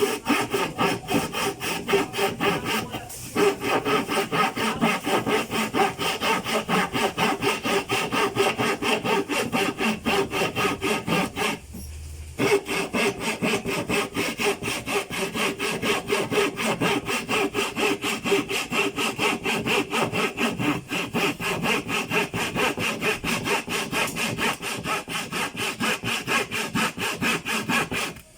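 Handsaw sawing with quick, steady back-and-forth strokes. It pauses briefly about three seconds in and for about a second near the middle.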